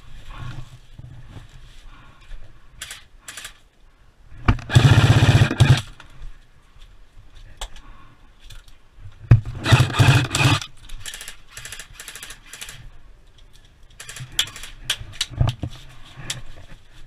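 Airsoft guns firing: two bursts of rapid full-auto fire about a second long, a few seconds apart, with scattered single shots or clicks around them.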